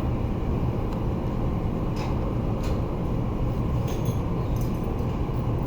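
Steady low rumble with a faint hum, and a few light clicks about two and four seconds in.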